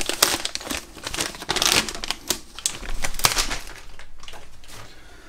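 Clear plastic bag crinkling and rustling in irregular spells as a milled aluminium chassis plate is pulled out of it, dying down near the end.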